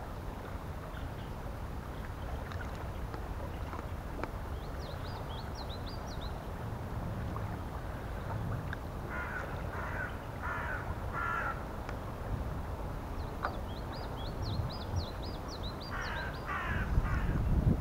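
A crow cawing in two runs of harsh calls, four about halfway through and three near the end. Between them a small songbird gives two runs of quick high chirps, over a steady low rumble.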